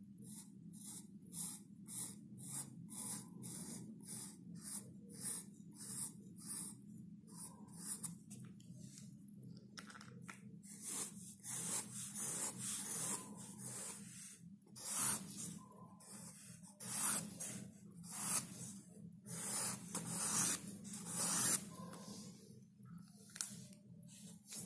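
Pen strokes scratching across sketchbook paper: short strokes about twice a second at first, then longer, denser strokes from about ten seconds in.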